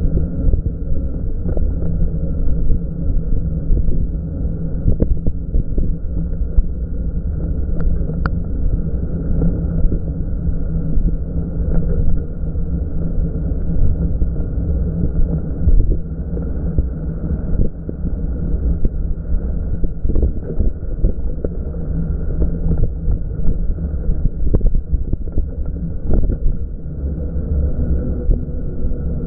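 Steady low rumble and wind noise from riding a Super73 S1 electric bike, with a constant low hum and a few faint clicks scattered through.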